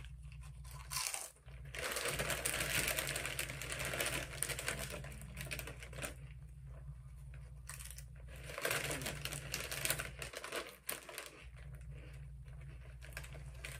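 A crinkly Doritos chip bag rustling and crackling in irregular bouts as hands rummage inside it for chips.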